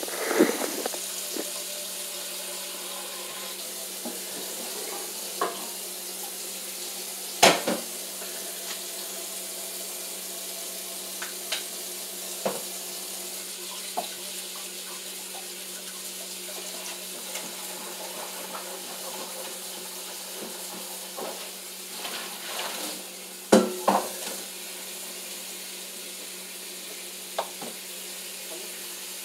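Kitchen tap running steadily into a sink while something dirty is washed, with scattered clinks of dishware and two louder knocks, about seven seconds in and again near 23 seconds.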